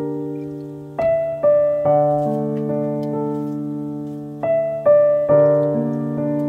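Background piano music: a slow, gentle tune of notes and chords, struck every half second to a second and left to ring.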